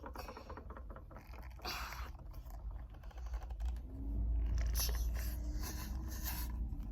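Scraping and tapping of small objects being handled and set down on a desk. A low rumble comes in about four seconds in.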